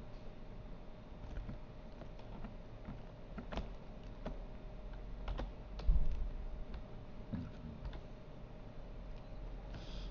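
Irregular clicks of a computer keyboard and mouse being worked, over a faint steady hum, with one low thump about six seconds in.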